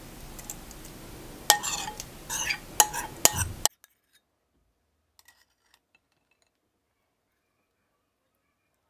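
Metal spoon scraping thick batter out of a ceramic bowl, with several sharp clinks of the spoon against the bowl. The sound cuts off suddenly a little over a third of the way in, leaving near silence with a few faint ticks.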